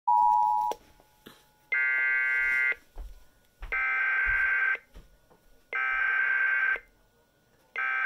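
Sage EAS ENDEC alert beeper sounding one-second beeps every two seconds, four times, counting down to playback of a received weather warning. It opens with the end of a steady two-tone note, the EAS attention signal.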